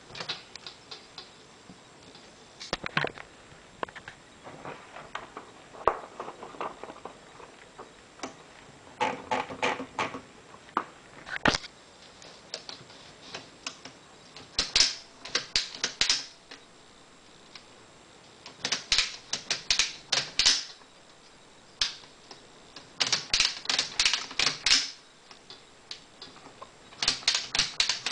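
1909 Underwood typewriter being typed on: its typebars striking in bunches of quick clacks with short pauses between them.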